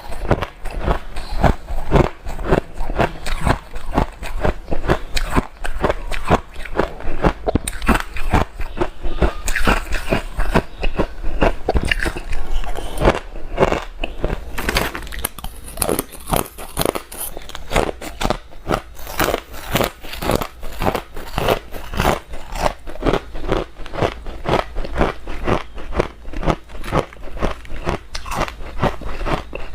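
Close-up crunching of hard ice: a person biting and chewing ice cubes, a rapid run of sharp cracking crunches several times a second, without pause.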